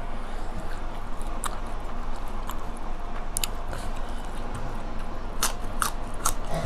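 Close-miked chewing with scattered sharp, wet mouth clicks, coming several in quick succession near the end.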